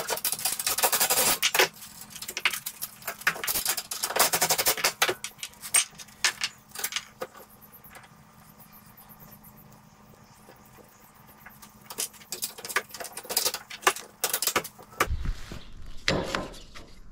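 Metal suspension parts and tools clinking and rattling in irregular short bursts, busiest at the start and again near the end, while a go-kart front suspension is adjusted by hand. A faint steady hum underneath stops about fifteen seconds in.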